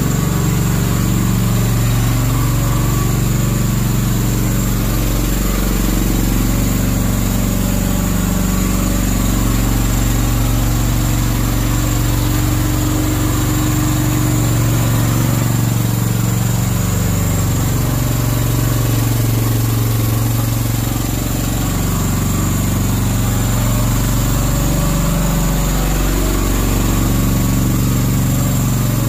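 Slanetrac HT1000 tracked mini dumper's engine running steadily as the machine drives along, its pitch dipping and recovering a few times as the load changes.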